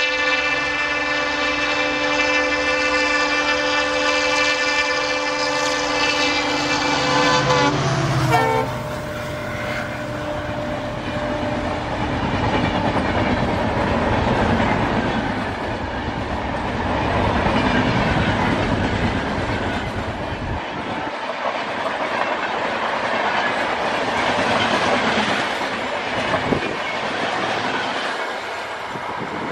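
An EMD WDP-4 diesel locomotive sounds a long, steady multi-tone horn as it approaches. About eight seconds in, the horn and engine drop in pitch as the locomotive passes, and the horn cuts off. The express's coaches then roll past with steady wheel clatter on the rails.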